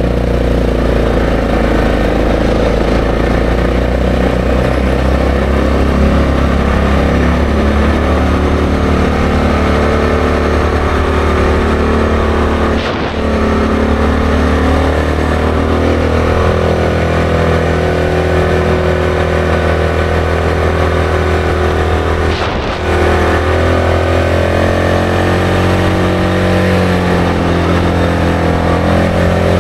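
ATV engine running steadily while being ridden, with two brief dips in the engine sound, about a third and three-quarters of the way through.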